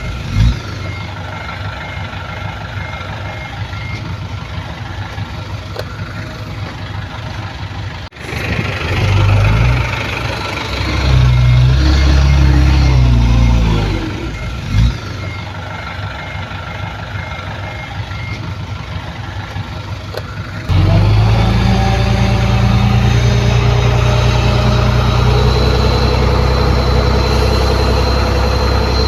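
Diesel engines of heavy construction machinery running and revving, with a reversing alarm beeping about twice a second in two stretches. About two-thirds of the way in, the sound changes abruptly to a louder, steady engine.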